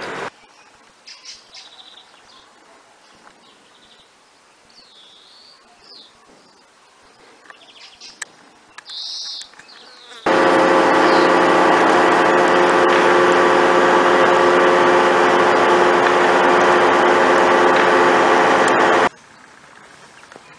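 Quiet outdoor background with a few faint bird chirps. About halfway through, a loud, steady buzz starts suddenly and cuts off just as suddenly some nine seconds later.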